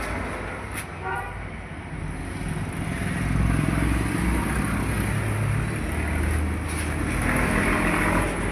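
Motor vehicle traffic running past, a continuous engine rumble that swells and fades, with a brief pitched toot about a second in.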